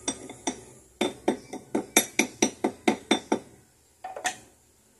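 Rapid metallic tapping on a steel ring mandrel holding a gold ring, about four or five ringing strikes a second, shaping the ring. The strikes stop about three and a half seconds in, and a short cluster of fainter taps follows.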